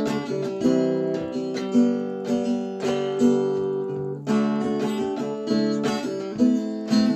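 Craven Model 265 acoustic tenor guitar played alone in an instrumental passage, chords strummed and picked with ringing notes and regular accented strokes.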